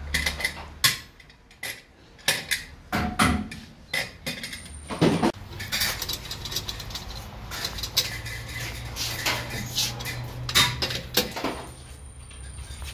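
Metal clinking and clattering of a socket wrench on the steel wheel bolts of an alloy wheel as they are worked in, with several sharper knocks scattered through.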